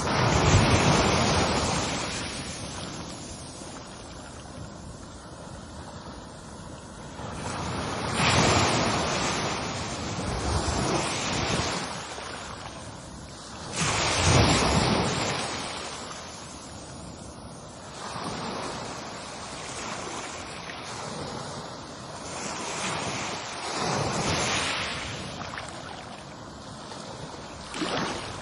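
Ocean waves breaking on a shore in a steady wash of surf. Larger waves surge up just after the start, at about 8 seconds, at about 14 seconds and at about 24 seconds, with smaller ones between.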